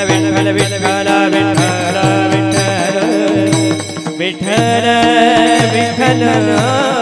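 Varkari bhajan music, a devotional Marathi tune (chal): a melody over a quick, steady drum beat.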